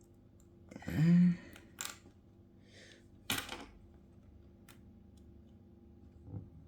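A short hummed "hmm" from a person, then a few small sharp clicks and a brief scrape of metal tools on iPhone parts during disassembly.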